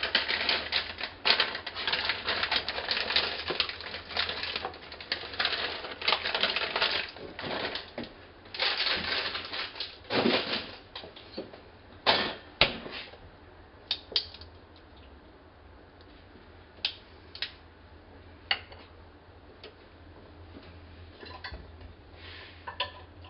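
Water boiling in a small stainless steel saucepan of white corn kernels, with rapid crackling and popping of bubbles. The crackling is dense for the first ten seconds or so, then thins to scattered single pops.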